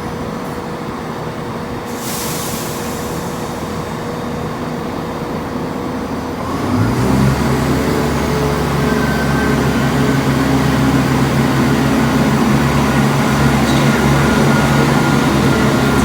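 A train at the station platform: a rumbling background, then from about seven seconds in a loud, steady low engine hum sets in and slowly grows louder.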